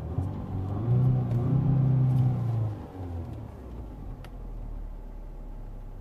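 Audi A4's 1.8-litre four-cylinder petrol engine running smoothly, heard from inside the cabin. The engine note rises and gets louder from about one to three seconds in, then settles back to a steady idle. No misfire now that the faulty ignition coil has been replaced.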